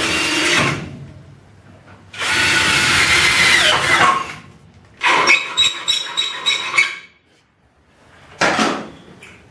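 Handheld power drill drilling into the car body, running in several bursts: a brief one at the start, a steady run of about two seconds, then a choppier stop-start stretch, and a short blip near the end.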